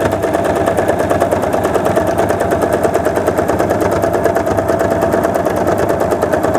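Electric sewing machine stitching a straight seam at a steady speed: a rapid, even clatter of needle strokes over a constant motor hum.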